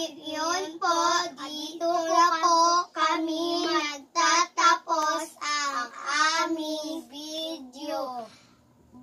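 A young girl singing in a high voice, phrase after phrase on held notes, the last phrases sliding down before she stops shortly before the end.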